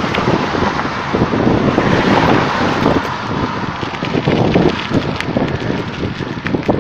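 Wind buffeting a phone microphone on the move: a loud, steady rushing with a heavy low rumble and a few faint clicks.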